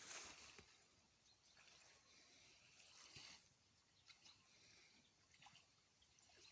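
Near silence, with a few faint, short splashes of water in a shallow pond.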